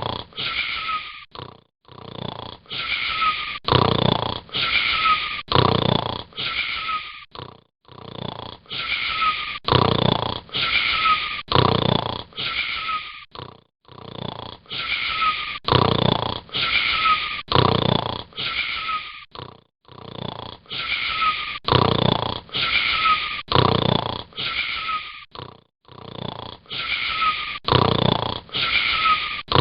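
Snoring: runs of quick, short, wheezy snores with a whistling tone that glides down on each one. Each run lasts several seconds and is broken by a brief pause, repeating evenly.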